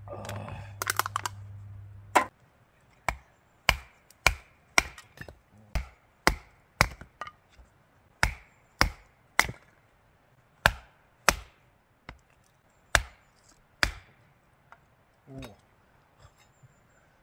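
A blade chopping into wood: a series of about eighteen sharp strokes, roughly two a second with short pauses. Before them, a low steady hum and a brief clatter, the hum cutting off about two seconds in.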